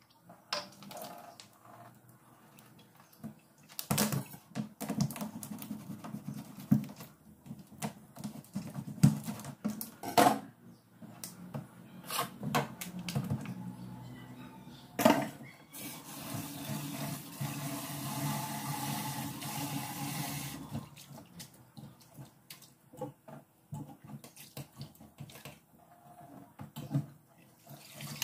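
Handling at a stainless-steel kitchen sink: pickled bamboo shoots are worked out of a plastic bottle into a steel bowl, with several sharp knocks of the bottle and bowl against the metal. Midway a tap runs into the bowl for about five seconds to rinse the shoots, and near the end water is tipped off through a mesh strainer.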